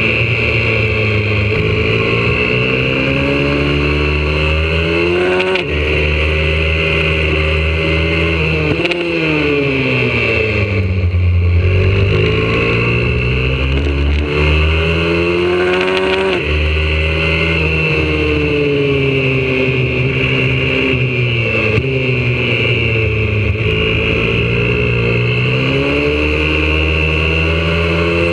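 Onboard sound of a YCF 125cc four-stroke single-cylinder pit bike engine under hard acceleration, its pitch climbing through each gear and dropping abruptly at upshifts three times. Near the middle the revs fall away for a couple of seconds as the bike slows, then build again.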